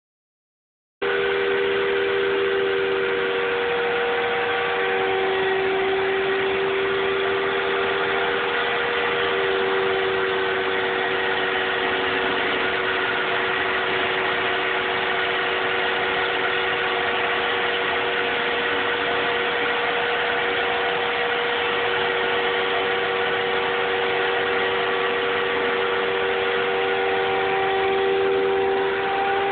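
Router spindle of a homemade CNC router running steadily as it carves into a wooden board. It is a constant whine with a tone that swells and fades every few seconds, starting abruptly about a second in.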